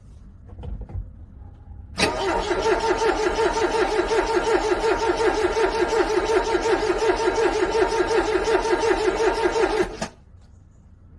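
Car starter cranking a cold engine for about eight seconds in an even rhythm of about six pulses a second, without the engine catching, then stopping abruptly. A brief low thump comes just before the cranking.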